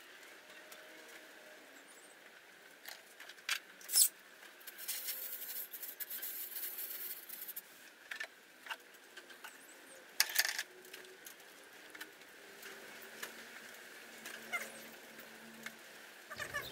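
Scattered knocks and clicks of wooden sand-casting flasks and a hand tool being handled, the sharpest about four seconds in. A few seconds of hissing scrape follow it, and a faint low hum comes in near the end.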